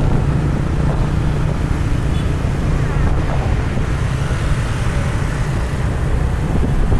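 Traffic in a jam: a steady low rumble of vehicle engines and road noise, with wind buffeting the microphone.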